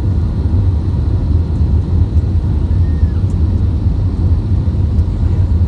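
Cabin noise of an Airbus A320 on final approach, heard from a seat over the wing: a steady low rumble.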